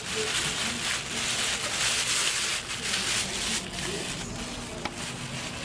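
Pressure washer spraying water onto a transmission case, a steady hiss of spray.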